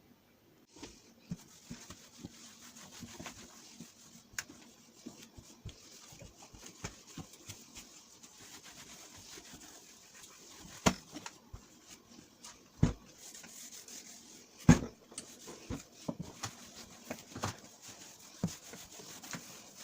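A cloth rubbing and wiping over kitchen surfaces, with scattered light taps and clicks and a few louder knocks in the middle.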